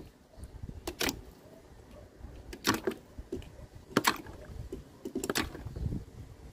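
Die-cast toy cars dropping one after another off a wooden plank into a plastic tub of water: four short splashes, roughly a second and a half apart.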